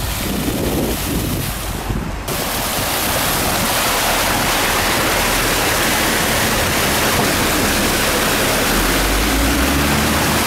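Muddy floodwater rushing through a corrugated steel culvert pipe, a steady loud rush of water. About two seconds in it suddenly becomes louder and fuller, the sound of the flow inside the pipe.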